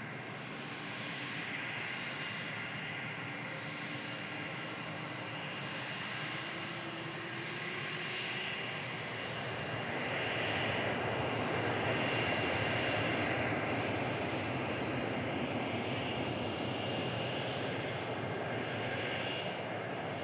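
Boeing 767 cargo jet's turbofan engines during landing: a steady rush of jet noise with a faint high whine, growing louder about ten seconds in as the aircraft comes closest and then staying loud.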